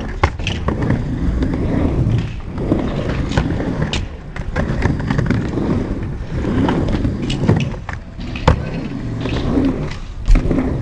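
Skateboard wheels rumbling over a ramp, broken by sharp clacks and knocks of the board. The rolling swells and fades as the rider moves, and the loudest knock comes near the end.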